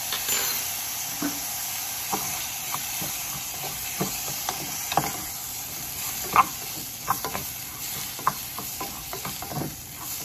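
Rice and diced red bell pepper sautéing in canola oil in a saucepan, with a steady sizzle, while a wooden spoon stirs in turmeric, scraping and knocking against the pan in short irregular clacks, the loudest about six seconds in.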